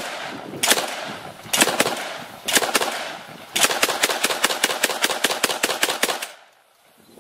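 AA-12 fully automatic 12-gauge shotgun firing: a few single shots and short bursts, then a long burst of about five shots a second lasting about two and a half seconds that cuts off suddenly.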